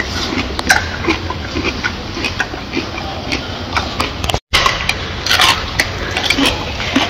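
Silverback gorilla eating a banana: irregular wet clicks and smacks of its lips and mouth as it chews.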